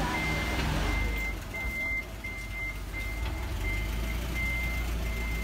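An electronic beeper sounds a single high tone about twice a second. Beneath it runs the steady low rumble of an idling minibus engine.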